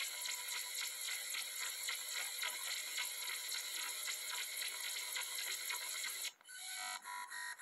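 Bytebeat audio generated by the Sulfoxide.exe malware, played through a laptop's speakers: a harsh, steady crackling noise laced with high tones. Near the end it cuts off abruptly and gives way to a rhythmic run of synthetic tones, about four a second.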